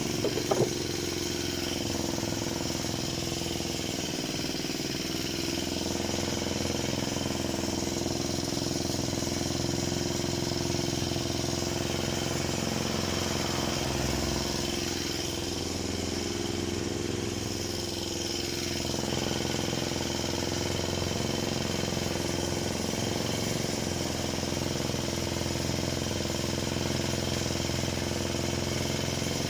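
Parma BP-058 two-stroke petrol chainsaw running steadily, its engine note holding at an even pitch, with a few sharp clacks about half a second in.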